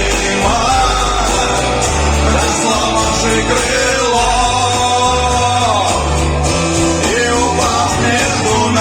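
A rock song being sung, the voice carried over guitar and bass.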